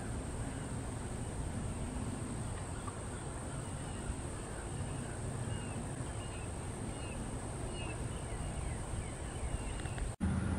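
Wetland field ambience: a steady low rumble under a constant thin high-pitched tone, with faint short bird chirps about once a second through the middle. A brief dropout near the end.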